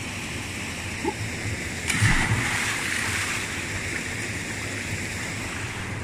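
A person jumping into a river pool below a waterfall: one sudden heavy splash about two seconds in, its hiss fading over the next couple of seconds. Under it is the steady rush of the falling water.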